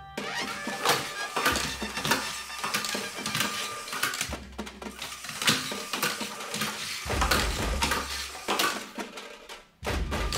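A LEGO Mindstorms robot's yellow plastic arc wheels clattering on a wooden floor as it drives along: a rapid, irregular run of plastic clicks and knocks. It pauses briefly near the end.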